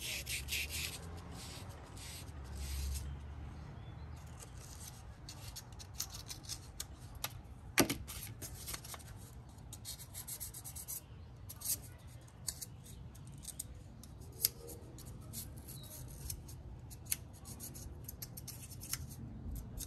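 Repeated short scratching strokes of a steel wire brush scrubbing a spark plug clean, with a few sharp clicks, the loudest about eight seconds in.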